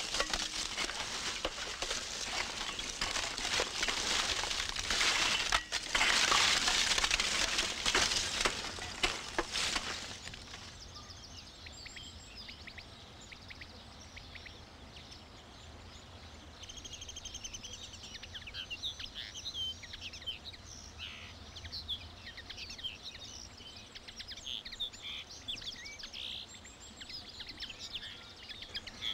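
A loud, dense hiss full of crackles for about the first ten seconds, then it stops and birds chirp and sing in woodland, many short high calls and trills that grow busier after a few seconds.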